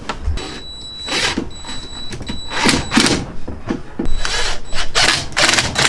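Irregular scrapes, rustles and knocks of plastic hose and PVC pipe fittings being handled and fitted into a tank, with a thin high tone in two short stretches.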